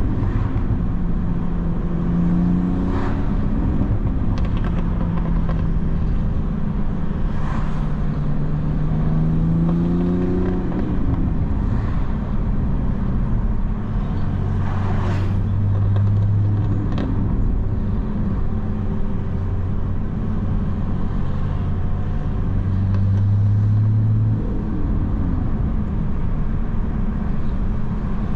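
2019 MK5 Toyota Supra driving, its engine note and road noise steady. The engine pitch rises about a third of the way through and drops away as the driver lifts or shifts, then holds steady again.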